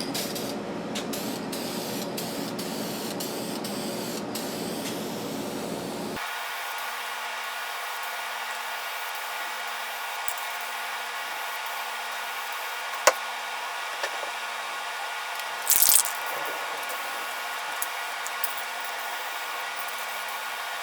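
Polyurethane finish being sprayed onto wood: a steady hiss that changes character abruptly about six seconds in, with a sharp click about two-thirds of the way through and a short, louder blast a few seconds later.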